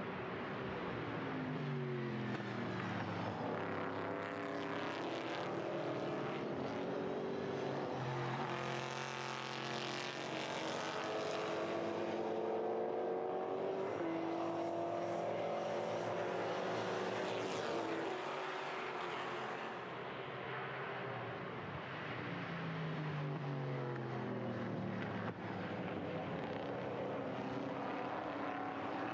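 V8 saloon race car engines, a Mercedes C63 AMG among them, running hard past the microphone. The pitch climbs through each gear and drops at each shift, then falls away as the cars go by.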